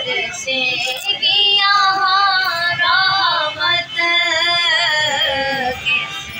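A woman singing a devotional recitation (naat) in long held notes that waver and bend in pitch.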